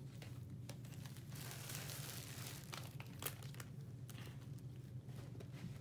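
Faint handling sounds of a small 2-ounce plastic baby bottle: light clicks as its cap is fiddled with, and a brief rustle about two seconds in. A steady low hum lies underneath.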